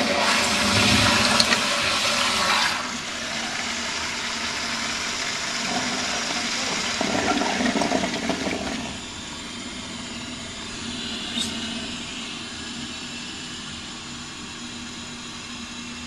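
Sloan Flushmate pressure-assist toilet finishing its flush: a loud rush of water for the first few seconds, then a weaker rush with a swell around seven to eight seconds in. Then a steady, quieter hiss of water as the tank refills.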